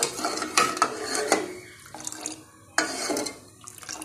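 Steel ladle stirring milky masala chai in a metal saucepan, clinking and scraping against the pan in a few quick spells, the busiest in the first second and another about three seconds in.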